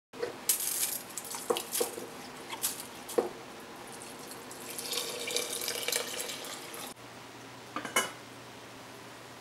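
Chicken broth poured from a glass measuring cup onto dry quinoa in a pot, splashing for about two seconds, after a few light knocks of cookware. Near the end a glass pot lid is set down with a single clink.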